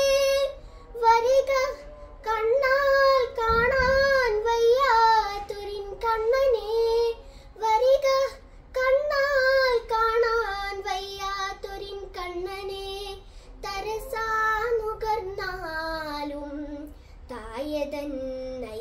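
A young girl singing Malayalam verse unaccompanied, a slow melodic chant in phrases with short breaths between them and long, wavering held notes. Her pitch sinks lower toward the end.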